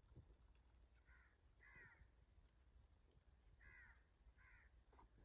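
Faint cawing of crows: four short, harsh caws in two pairs, over a low background rumble.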